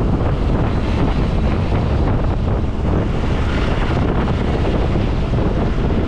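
Wind rushing over the microphone from a moving intercity bus, mixed with the bus's road and engine noise at highway speed; loud and steady throughout.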